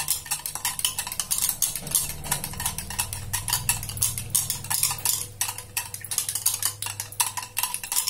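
Wire whisk beating curd in a bowl: a fast, continuous run of light ticks as the wires strike the bowl's sides, churning the curd smooth so no lumps remain.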